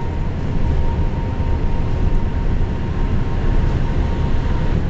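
Steady rumbling running noise of a moving passenger train, heard from inside the carriage, with a faint steady whine that fades out near the end.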